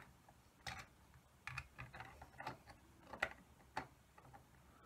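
Light clicks and taps of 3D-printed plastic parts being handled and fitted together, about half a dozen scattered through the few seconds.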